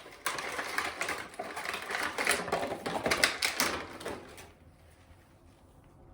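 Packaging of a doll being opened by hand: a run of rustling and crinkling with quick clicks, stopping about two-thirds of the way through.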